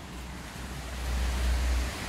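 Outdoor city ambience heard from a balcony: a steady hiss of street traffic, with wind rumbling on the microphone.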